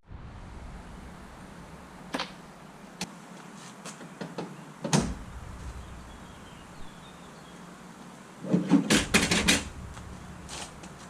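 Scattered knocks and clicks of parts being handled, one at a time at first, then a quick run of several knocks about nine seconds in.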